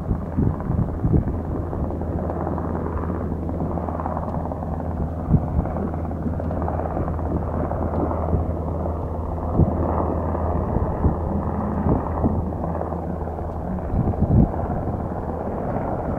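Wind buffeting the microphone over a steady low rumble.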